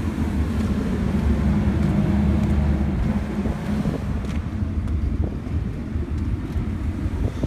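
Wind buffeting the microphone over the steady low rumble of a ferry underway.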